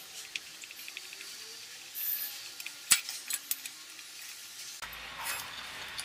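A metal tool tapping and clinking against a two-stroke motorcycle engine's aluminium crankcase and magneto stator plate: a few light clinks, with one sharp metallic click about three seconds in.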